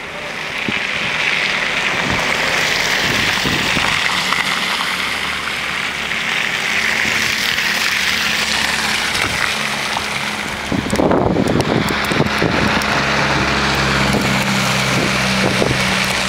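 Steady wind noise on the microphone in a snowstorm. From about halfway through, cars on a snowy road add a low engine hum and the hiss of tyres through slush.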